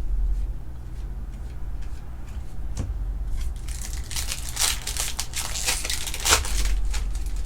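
Crinkling and tearing of a trading card pack's wrapper as it is opened by hand: a single click a little under three seconds in, then about three seconds of crackly crinkling that is loudest near the end.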